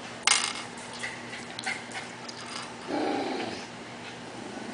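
Small hard-plastic clicks and clacks of Lego minifigure pieces being handled, the sharpest about a third of a second in, then a few lighter ticks. About three seconds in there is a brief low rustle.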